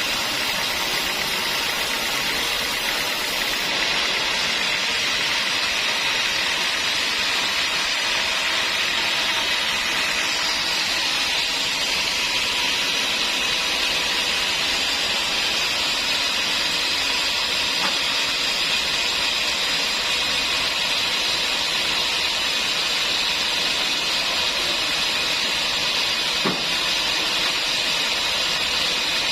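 Sawmill saw running steadily: a constant high hiss with no pauses, and one brief knock near the end.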